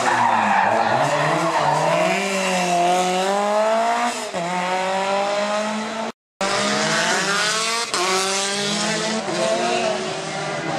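Rally car engines revving hard, the pitch climbing and dropping again and again through gear changes, with tyre squeal. The sound cuts out briefly about six seconds in and picks up again on another car.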